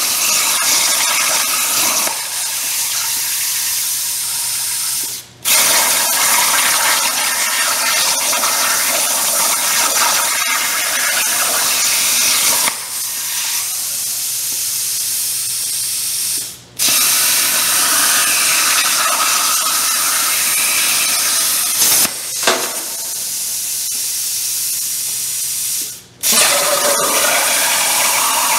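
CNC plasma torch cutting round tubing with water injection: a loud, steady hiss from the arc and cutting air. Three times it drops to a quieter hiss while the arc is off between cuts, goes almost silent for a moment, then jumps straight back to full level as the arc restarts.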